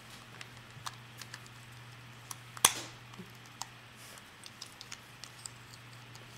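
Irregular light clicks and taps of typing on a computer keyboard, with one louder click a little before halfway, over a steady low electrical hum.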